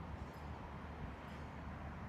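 Faint, steady low rumble and hiss of a distant train approaching along the line.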